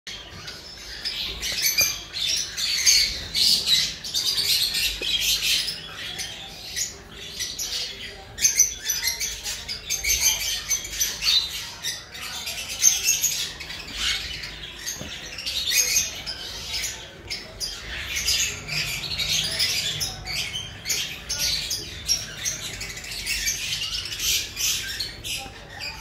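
A flock of yellow-sided conures, a colour mutation of the green-cheeked conure, squawking and chattering: many short, high-pitched calls overlapping almost without a break.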